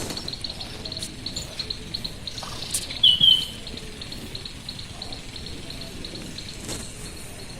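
An insect, cricket-like, chirping in a steady high pulsing rhythm of about five pulses a second, with a bird giving two quick loud chirps about three seconds in.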